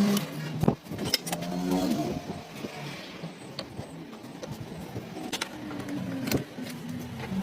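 A small motor's hum cuts off at the start, followed by scattered sharp knocks and clicks, and the motor starts up again near the end.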